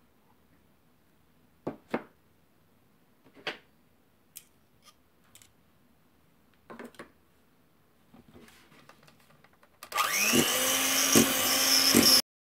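An electric hand mixer starts up near the end and runs for about two seconds with a steady whine, beating softened butter and boiled condensed milk into buttercream, then cuts off abruptly. Before that, a few light knocks.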